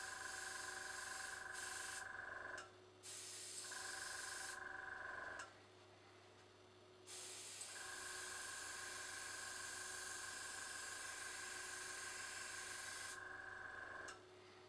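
Small tankless airbrush compressor running with a steady whine while a dual-action airbrush hisses, spraying paint. The spraying pauses three times, and each time the compressor cuts out about a second later, starting again soon after the spraying resumes.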